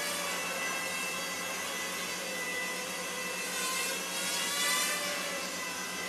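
WLtoys V939 Ladybird mini quadcopter's four small motors and propellers whining in flight. The pitch rises and falls as the throttle changes, with a louder, higher swell about four to five seconds in.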